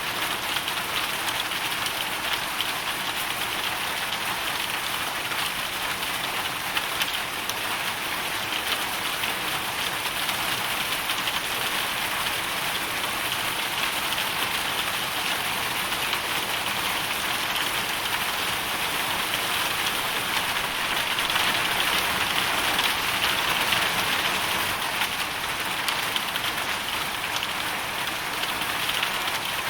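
Hailstorm: a dense, steady hiss of countless small hailstones and raindrops striking a surface, swelling a little about two-thirds of the way through.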